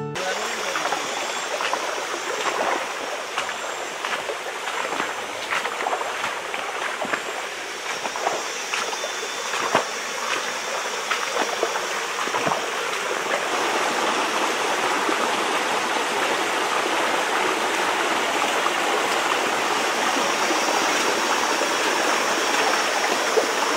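Shallow mountain creek running and splashing over rocks, with scattered knocks and splashes of footsteps on the wet stones in the first half. The rush of water grows louder and steadier a little past halfway.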